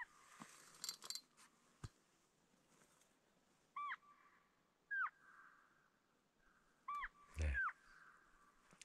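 Elk calls played from an electronic game caller to lure wolves: four short, high calls that rise and fall, spaced over several seconds. The last call comes with a low thump.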